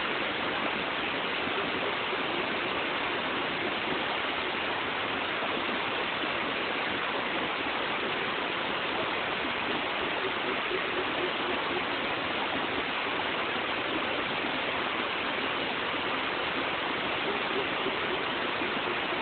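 Steady, even rush of water from a waterfall pouring into a pool.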